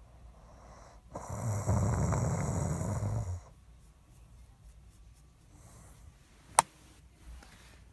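A man snoring: one long snore with a fluttering, rattling buzz starts about a second in and lasts a little over two seconds. A single sharp click comes near the end.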